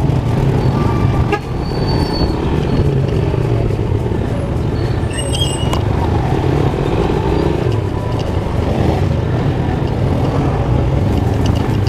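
Motorcycle engine running steadily at low speed through street traffic, with road and traffic noise and a brief high horn toot about five seconds in.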